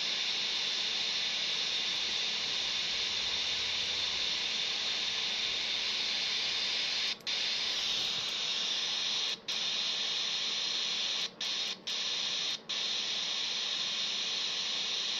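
Steady static hiss from a Quansheng UV-K5 handheld radio's speaker with the squelch open and no station coming through. It cuts out sharply for a moment five times in the second half.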